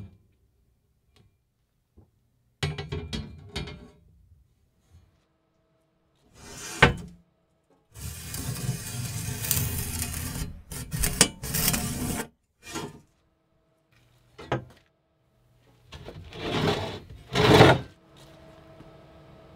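A rusty steel bar handled on a wooden workbench: separate bouts of knocking, sliding and scraping metal against wood, with a longer stretch of scraping about halfway through. A faint steady hum fills the gaps and carries on near the end.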